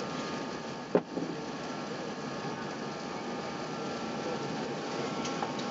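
Steady cabin noise inside an Airbus A380 airliner, the air-conditioning and engine hum with a steady whine, broken by one sharp click or knock about a second in.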